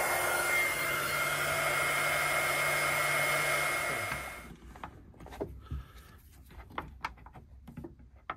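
Heat gun blowing steadily with a thin whine, shrinking heat-shrink tubing over a crimped cable lug; about four seconds in it switches off and its fan runs down. After that, a few light clicks and knocks.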